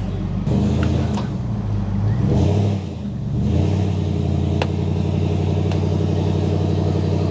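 Pickup truck engine running under load as it maneuvers a camper trailer, its note picking up about half a second in, easing off near the 3-second mark and coming back up soon after.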